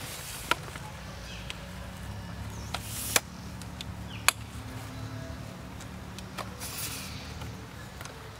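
Outdoor ambience: a low steady hum with a few sharp clicks and brief rustles, the loudest clicks about a second in and a little after three seconds.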